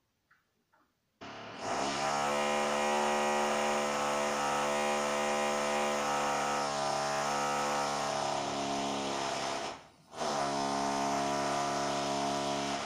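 Loud power tool from the window replacement in the stairwell, carried through the building's walls: a steady buzzing drone starts about a second in, stops briefly about ten seconds in, then runs again.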